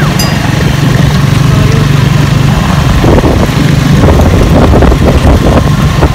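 Motorcycle engine of a Philippine tricycle (motorcycle with sidecar) running steadily as the passenger sidecar rides along. From about three seconds in, uneven knocks and rattles join the engine hum.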